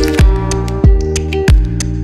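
Background music with a steady beat: a deep kick drum about every two-thirds of a second under sustained chords.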